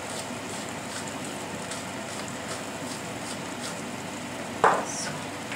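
Filling frying gently in a pan: a steady low sizzle with faint crackles. A single sharp knock comes about four and a half seconds in.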